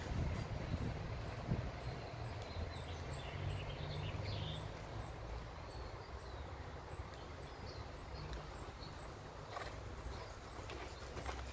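Muffled hoofbeats of a horse cantering on arena sand over a low outdoor rumble. A steady high ticking chirp repeats a few times a second, with a few scattered bird-like chirps.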